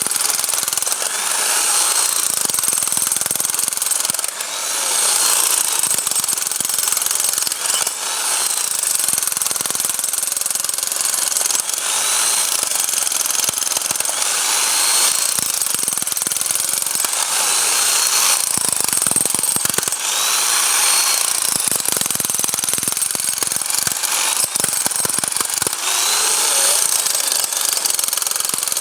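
Bosch hammer drill running continuously with its hammer action on, a steady rattling hammering with only brief dips.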